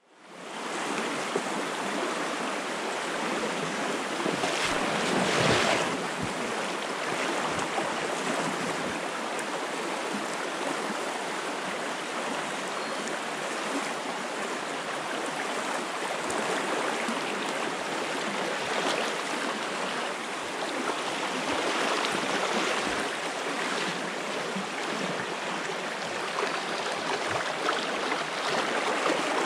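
Small shallow brook flowing over stones: a steady rushing of water that fades in over the first second, with a brief louder swell about five seconds in.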